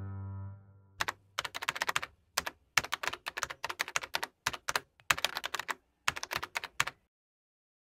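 Typing on a keyboard: rapid clicking keystrokes in short irregular bursts for about six seconds, stopping suddenly near the end. Soft piano music fades out in the first second.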